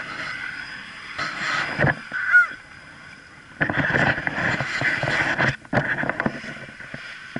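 Off-road race vehicle engine revving in loud surges, about a second in and again for a few seconds from the middle, with wind on the microphone.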